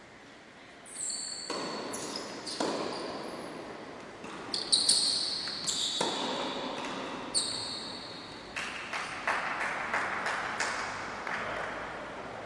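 A tennis rally in a large indoor sports hall: sharp racket strikes and ball bounces ring and echo, with short high shoe squeaks on the court floor. Near the end comes a quick run of sharp knocks.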